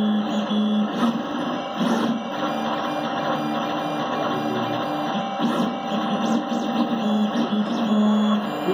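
Dual-extruder FDM 3D printer running a print. The stepper motors whine in steady low tones that start, stop and shift as the print head moves, over a steady fan noise.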